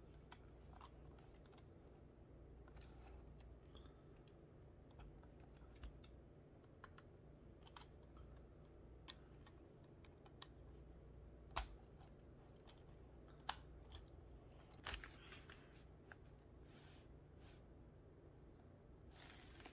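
Plastic Qman building-block pieces clicking as Technic-style pins are pushed into beams, in sparse small clicks with two sharper snaps around the middle. Near the end, paper rustling from the instruction booklet being handled.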